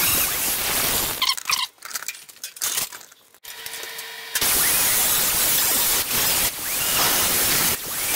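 Small electric angle grinder with a cut-off wheel running and cutting sheet steel on a truck cab pillar, a loud steady hissing whine. It stops about a second in and starts again a few seconds later, with two short dips near the end.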